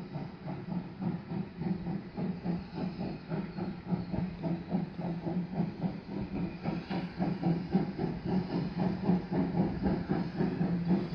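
Steam tank locomotive 4015 Karel pulling away, its exhaust beating in a steady rhythm of a few chuffs a second with hissing steam, getting slightly louder.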